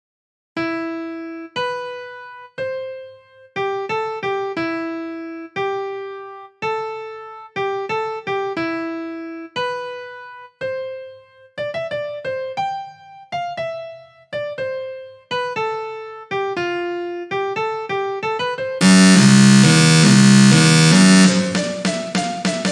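Notation-software playback of a synthesized piano melody, single notes struck one after another, each dying away. About 19 s in, the rhythm part's runs of very short notes at extreme tempo make a dense, loud buzz, which eases slightly about 21 s in as the piano melody carries on over it.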